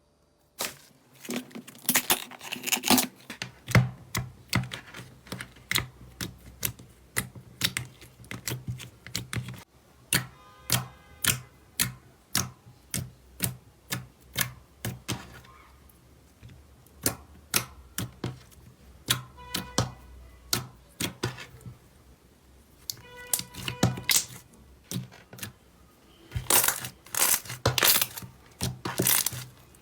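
Slime being squeezed and pressed by hand, giving rapid sharp clicks and pops, several a second.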